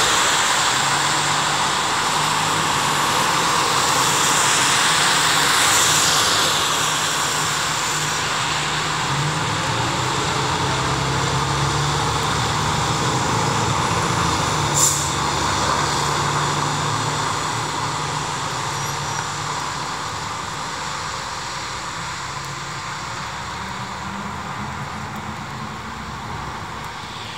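Aerial ladder fire truck driving on a wet road: a steady diesel-engine rumble under a loud wash of tyre and road noise, growing fainter over the second half as the truck moves away. A short sharp high sound cuts through once about halfway.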